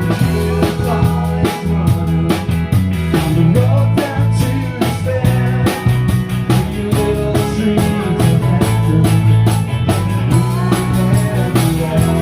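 Live rock band playing, with a drum kit keeping a steady beat over electric bass guitar.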